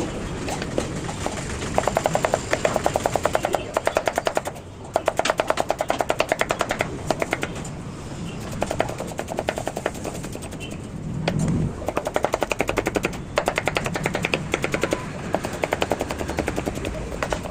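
Cabbage being shredded with rapid, evenly spaced knife strokes on a chopping board, about ten cuts a second. The cuts come in runs of one to two seconds with short pauses between.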